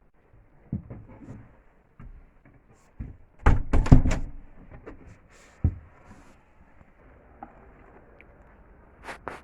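Scattered knocks and clunks from handling things at close range. The loudest is a burst of clatter about three and a half seconds in, followed by a single thump and a double knock near the end.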